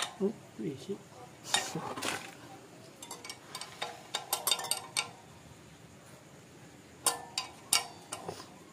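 Scattered metallic clinks and knocks of hand tools and loose metal parts being handled, coming in short clusters with pauses between.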